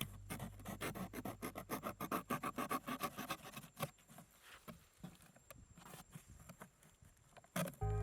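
A quick run of light scratching and scraping strokes, several a second, which thins out after about four seconds.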